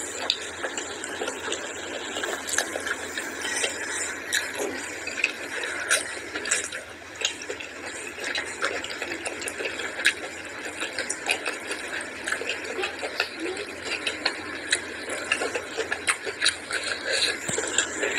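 Wet squelching of fingers mixing curry-soaked rice on a plate, with chewing and lip-smacking. Many small clicks and smacks.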